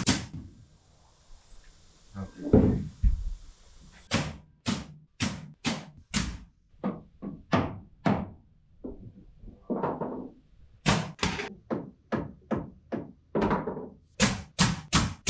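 Nails being driven into a wooden cabinet top: a heavy thump, then a long run of sharp strikes at about two a second, some in quick pairs.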